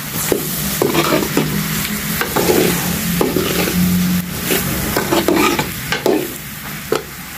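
A long metal spoon stirring and scraping sliced tinda (round gourd) around a metal karahi, with short strokes about twice a second over the steady sizzle of frying masala.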